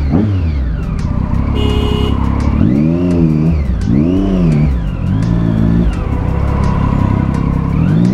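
Vehicle engine in traffic revving up and down several times in quick succession, its pitch rising and falling about once a second, with a brief horn-like tone about two seconds in.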